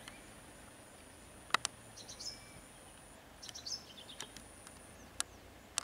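Birds chirping in short bursts against a thin, steady, high insect whine and faint outdoor background noise. A sharp click about a second and a half in and a smaller one near the end.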